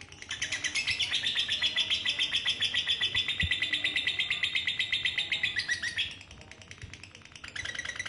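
Female lovebird's long 'ngekek' trill: a fast, rattling string of high notes running for about six seconds, breaking off, then starting again near the end.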